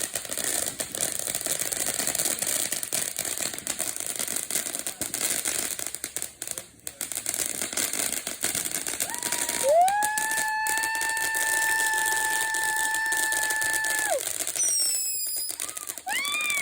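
Lit firework hissing and crackling steadily. About ten seconds in, a steady high whistle holds for about four seconds, followed by a few short rising and falling whistles.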